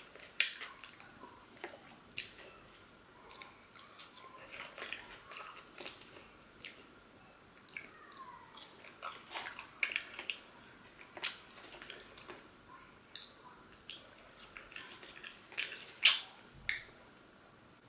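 Close-up eating sounds of KFC fried chicken and chips being chewed: a string of soft, wet mouth clicks and smacks, with a few sharper ones about eleven and sixteen seconds in.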